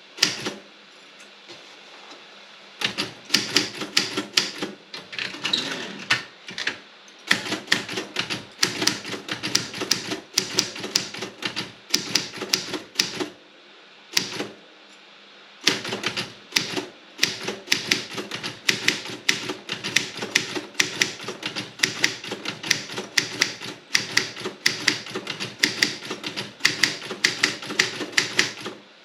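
Robotron 24 typewriter being typed on: runs of quick key strikes, several a second, broken by pauses of one to a few seconds.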